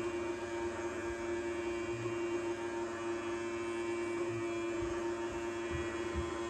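Toy robot vacuum's small electric motor humming steadily with an even, unchanging pitch.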